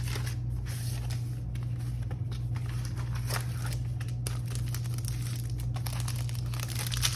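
Packaging crinkling and rustling as a mail-order parcel is unwrapped by hand, with scattered small crackles, over a steady low hum.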